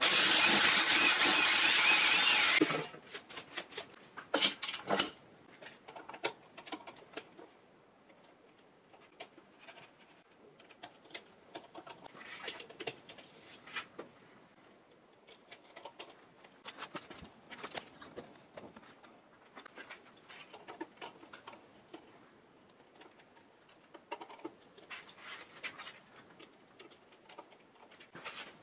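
Hitachi cordless drill boring through the laminate-topped birch plywood table top for about two and a half seconds, then stopping. After it come scattered light clicks and knocks of metal thread-stand parts being handled and fitted together.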